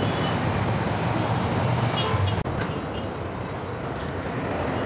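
Street traffic noise: a steady rumble of passing vehicles.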